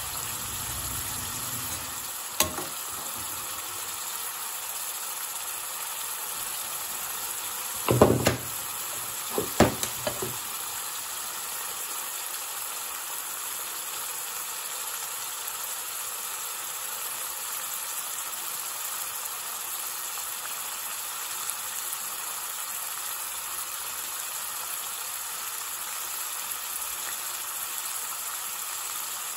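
Curry sizzling steadily in an aluminium pan on high heat. A metal ladle knocks against the pan once about two seconds in, then knocks and scrapes several times between about eight and ten seconds in as the curry is stirred.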